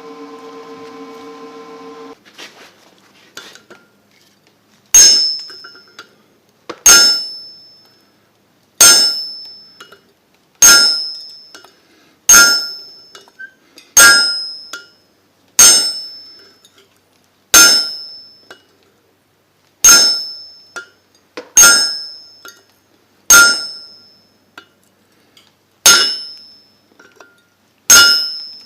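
Hammer blows on steel, one about every two seconds, each a sharp strike with a bright metallic ring that dies away.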